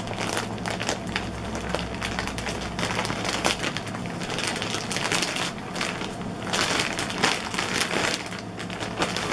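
Thin plastic bag being torn open and crinkled by hand, an irregular run of crackling and rustling as a foam pillow is pulled out of it.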